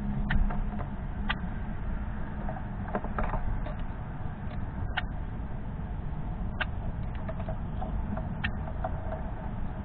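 A northern cardinal cracking black sunflower seeds in its beak, giving sharp, irregular clicks about every second.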